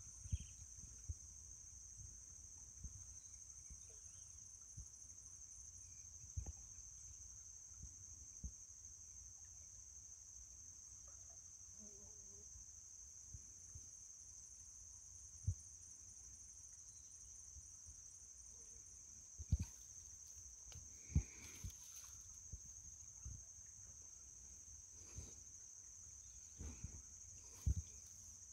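Steady high-pitched drone of insects. A few faint knocks sound over it, around the middle and near the end.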